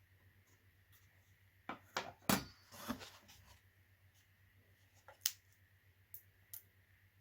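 Packaging and parts being handled: a short run of rustling and knocks about two seconds in, then a few separate sharp clicks.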